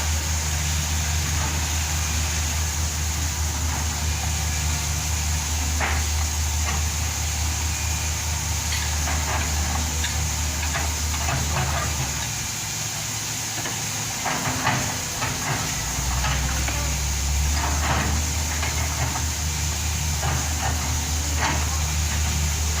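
Backhoe's diesel engine running steadily, its low hum dropping away for a few seconds in the middle, with scattered knocks and clanks from the machine at work.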